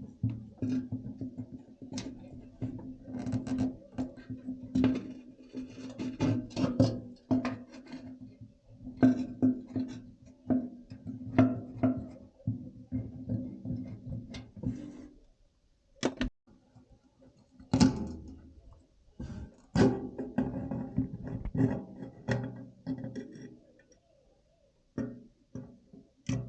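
Background music of plucked guitar-like strings with sharp percussive clicks, dropping out briefly twice.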